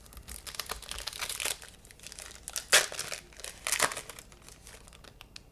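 Plastic trading-card pack wrapper crinkling as it is handled and torn, with a few louder crackles near the middle.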